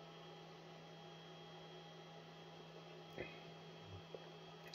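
Near silence: a steady low electrical hum, with a faint click about three seconds in.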